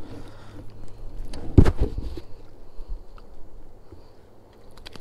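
Handling noise as a hooked white bass is swung aboard and gripped by hand, with one loud low thump about a second and a half in and a few light clicks later.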